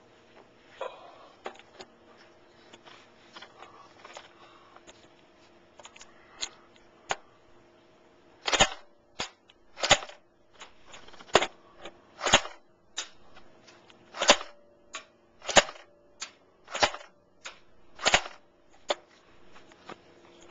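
Walther G22 airsoft rifle firing single shots on semi-auto: sharp cracks about a second apart from about six seconds in, with lighter clicks between them. Before that there is only light handling noise.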